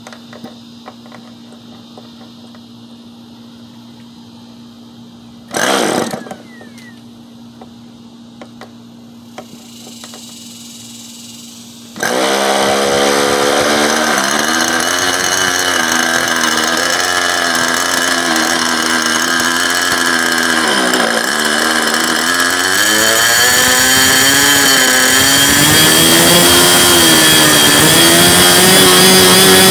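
OS .61 FSR two-stroke glow engine being started: a brief burst of cranking about six seconds in. About twelve seconds in the engine catches and keeps running with a high buzz. Its speed wavers up and down, then climbs and gets louder near the end.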